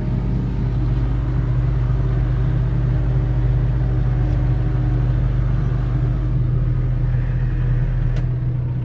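Vehicle engine running steadily with a deep, even hum; its lowest rumble drops away near the end.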